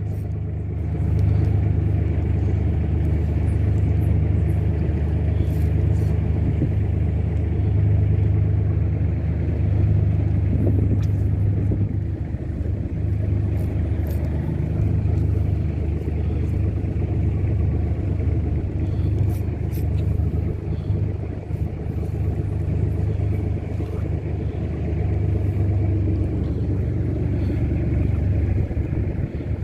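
A steady low rumble that swells and dips slightly, with a few faint clicks.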